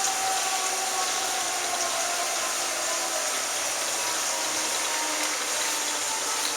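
Steady hiss of a heavy downpour with hail, with the wail of outdoor tornado sirens faint underneath, its tone slowly falling and fading out over the first few seconds.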